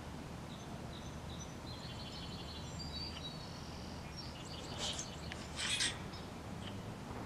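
Small birds twittering and chirping in the background over a steady low outdoor rumble. A run of thin, high twittering notes comes in the first half, and two louder brief sounds come about two-thirds of the way through.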